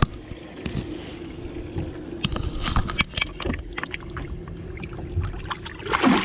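Handling knocks and rubbing as a peacock bass is held in the water over the boat's side, then a loud splash near the end as the released fish kicks free. A steady low hum runs underneath.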